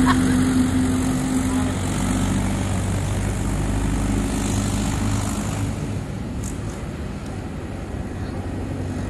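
Steady engine drone with a low hum, fading somewhat about two-thirds of the way through.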